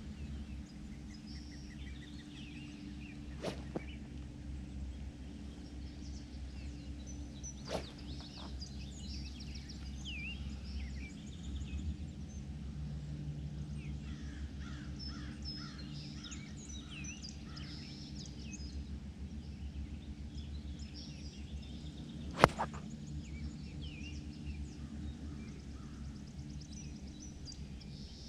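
One sharp crack of a 7-iron striking a golf ball about 22 seconds in, over birds chirping and a steady low outdoor hum. There are two fainter clicks in the first eight seconds.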